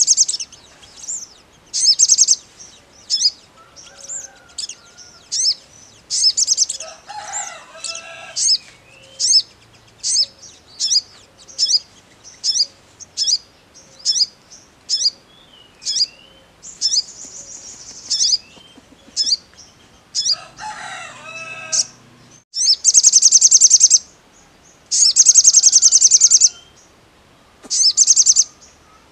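Male olive-backed sunbird (kolibri sogon) singing: a fast run of sharp high chirps, broken by several longer buzzy trills, the longest and loudest near the end. It is a song of the kind used to make other sunbirds answer. A lower, rougher call sounds in the background twice, about seven and twenty seconds in.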